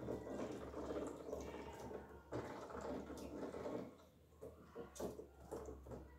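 Ducklings feeding in a plastic tub, their bills nibbling at lettuce and dabbling in water: a soft, rapid pattering and clicking, with a few sharper taps.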